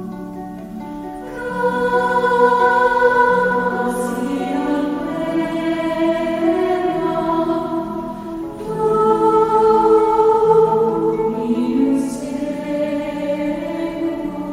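Choir singing a slow hymn-like piece in sustained harmony, swelling louder about a second and a half in and again past the middle.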